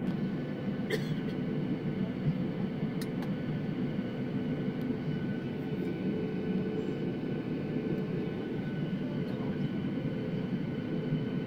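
Airliner jet engines running at steady low power while the plane taxis, heard inside the cabin as an even hum and whine with no build-up in thrust. A couple of faint clicks are heard about a second and three seconds in.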